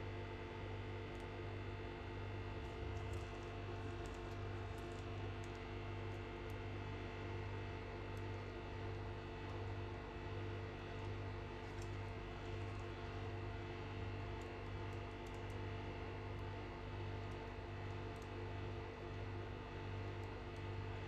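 Steady low electrical hum with several steady tones above it, gently wavering in strength, and a few faint light clicks now and then.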